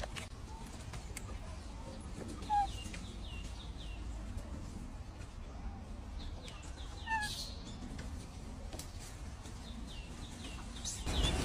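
Birds chirping in forest, with many short, high, falling chirps over a low background rumble. Two louder short calls stand out, a few seconds in and again about halfway.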